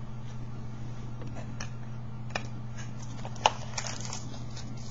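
Trading cards being handled: scattered light taps and faint rustling, with one sharper click about three and a half seconds in, over a steady low hum.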